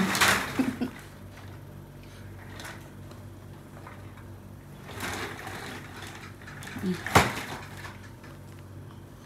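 Indoor household handling noises: a brief rustle at the start and one sharp knock about seven seconds in, over a faint steady low hum.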